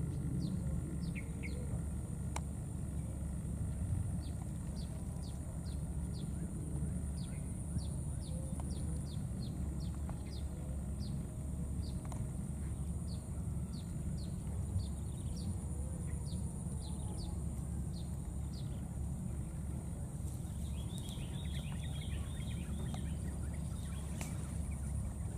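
Outdoor ambience with a steady low rumble and a constant thin high hiss. Through it runs a long series of short, high, falling chirps, about two a second, then a brief flurry of warbling calls near the end.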